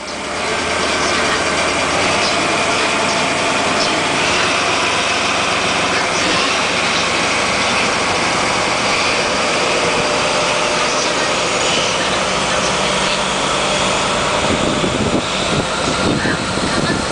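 Diesel locomotive's engine running steadily as it hauls a train of unpowered new E353 series electric cars slowly past. In the last few seconds, as the cars go by, the rumble and knocking of wheels on the rails takes over.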